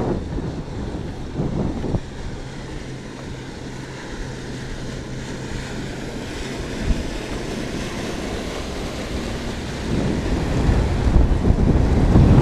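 A motorboat's outboard engine running as the boat passes close by, its low steady drone mixed with wind buffeting the microphone; the rushing noise grows louder in the last couple of seconds as the boat and its wake come near.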